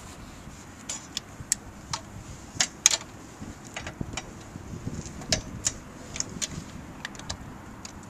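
A dozen or more sharp, irregular metallic clinks and clacks as backhoe mounting hardware is handled and latched at the rear of a John Deere sub-compact tractor, the loudest pair about two and a half to three seconds in, over a low steady rumble.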